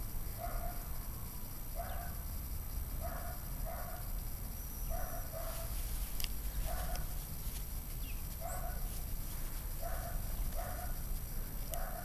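An animal calling repeatedly: short calls, steady in pitch, coming singly or in pairs about every second and a half.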